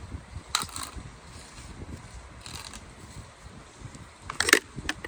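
Plastic cover inside a car door being pried off: a few sharp clicks and snaps, the loudest cluster near the end.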